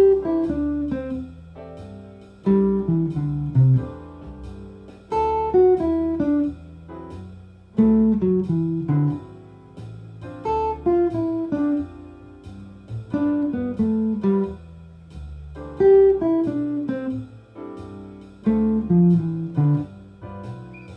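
Jazz guitar playing a 5-3-2-1 pattern on each chord, so that each chord gets the fifth, third, second and root in turn, over a backing track at 90 BPM. The guitar lines fall in pitch in runs that repeat about every two and a half seconds over a steady bass.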